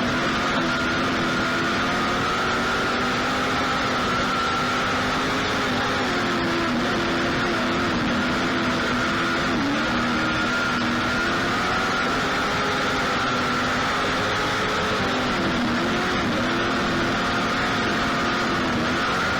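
Racing engine held at high, steady revs, its pitch dipping briefly a few times, as when lifting off the throttle.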